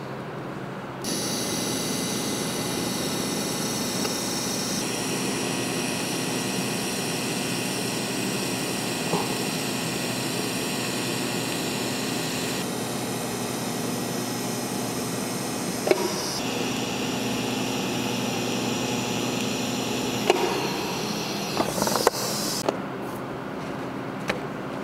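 TIG welding arc on the nozzle's bars: a steady hiss with high-pitched tones that starts about a second in and cuts off shortly before the end, its tones shifting a few times. A sharp tap comes midway and a few more near the end.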